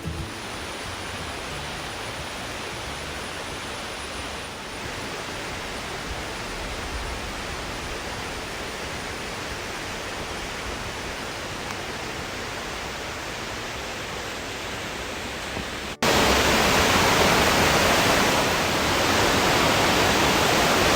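Waterfall: falling water rushing steadily. About three-quarters of the way through it cuts abruptly to a louder, closer rush of water.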